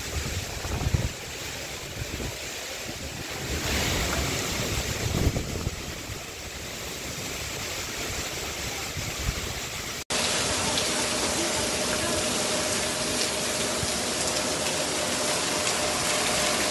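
Heavy rain with gusting wind, the hiss swelling and easing with the gusts. About ten seconds in it cuts to a steady, even rush of rain and running water on a flooded street.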